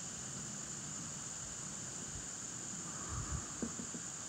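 Breathing of the person filming, close to the microphone, over a steady high-pitched hiss. A few soft breath puffs hit the microphone about three seconds in.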